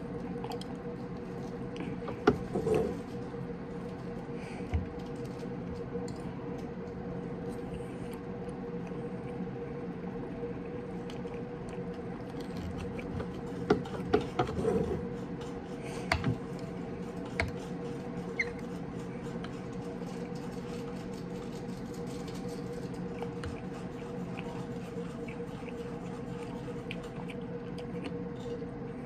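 Knife and fork cutting chicken and clinking against a ceramic plate every so often, with a cluster of clinks about halfway through, over a steady low hum.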